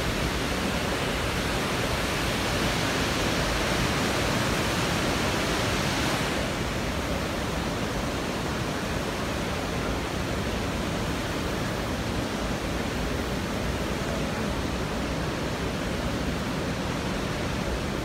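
Waterfall rushing: a steady, even noise of falling water, somewhat louder for the first six seconds.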